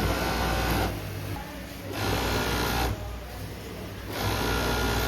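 Industrial sewing machine stitching denim in short runs of about a second each, starting and stopping three times.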